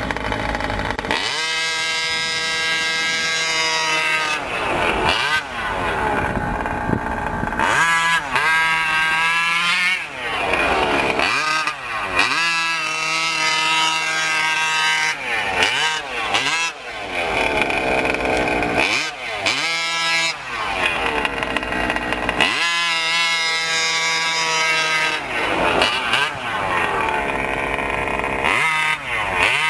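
Losi 5ive-T RC truck's small two-stroke gas engine revving up and falling back over and over as it is driven, with stretches held at a steady pitch.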